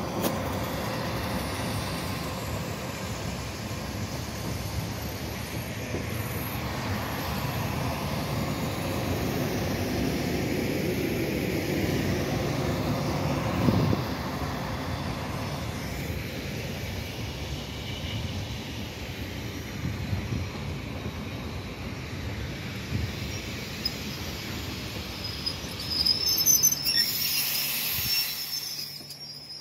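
Suburban electric train running past along the platform, its wheels and carriages making a steady rumbling rail noise. A short, high wheel squeal comes near the end.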